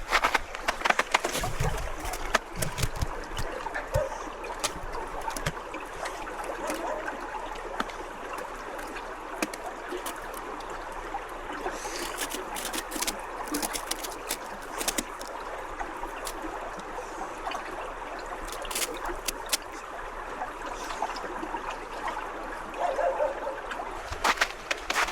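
Stream water running and trickling steadily, with scattered sharp clicks and taps throughout and a cluster of louder ones near the end.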